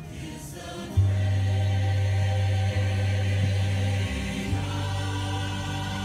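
Choral music with held chords. A deep sustained bass note comes in sharply about a second in and shifts to a new chord around four seconds in.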